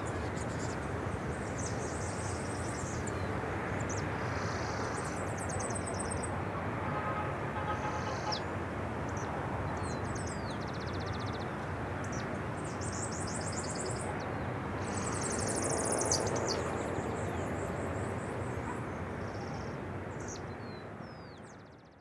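Small birds chirping and trilling in short, scattered calls over a steady hum of city background noise. The whole sound fades out near the end.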